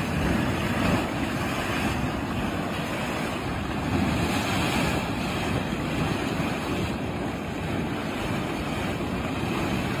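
Continuous rushing roar of gas and mud blasting out of the ground in a mud volcano eruption, with wind buffeting the microphone.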